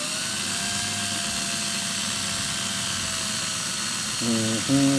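Cordless drill running at a steady speed, spinning resistance wire to wrap a 36-gauge Nichrome 80 Clapton coil. Near the end a person starts humming a few notes over it.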